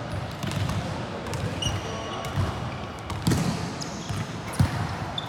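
Volleyball being struck and bouncing on a gym floor: several sharp thuds, the loudest near the end, with brief high squeaks of sneakers on the court.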